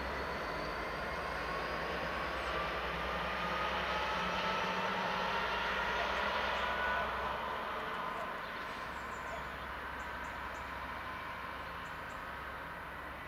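Class 66 diesel locomotive running light engine, its two-stroke V12 engine note rising steadily as it pulls away, then fading with distance over the last few seconds.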